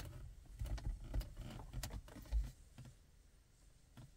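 Faint scattered plastic clicks and taps as a hand moves a car's rear-view mirror on its mount, with a few low thumps in the first two and a half seconds, then only an occasional tick.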